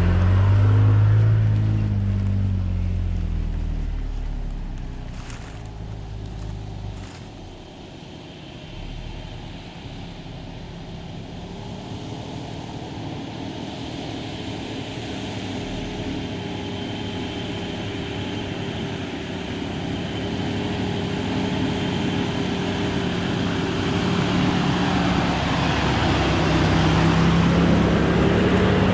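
A Toyota Tacoma pickup's engine passes close by at a slow trail crawl, loud at first and then fading away. Then a Jeep Wrangler's engine grows steadily louder as it approaches at low speed, passing close near the end.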